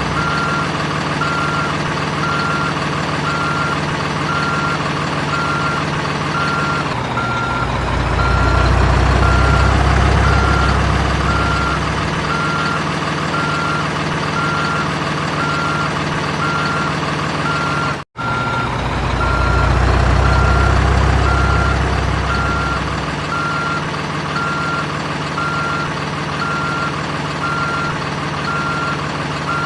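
Toy RC excavator's electronic sound module playing a simulated diesel engine with steady reversing beeps. The engine sound swells louder and deeper twice, as when the machine works under load, and the audio cuts out for an instant about two-thirds through.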